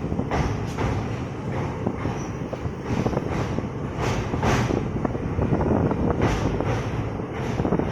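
Passenger train running along the track: a steady rumble of wheels on rail, broken by irregular sharp clanks and rattles.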